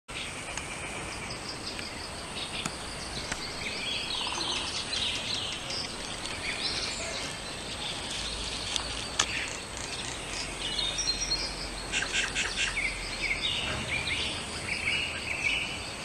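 Oriental magpie-robin singing a varied song of short whistled phrases and quick chattering notes.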